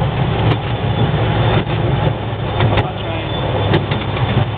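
Miniature railway train running, heard from aboard an open passenger car: a steady low rumble, with a few sharp clicks from the wheels on the track about a second apart.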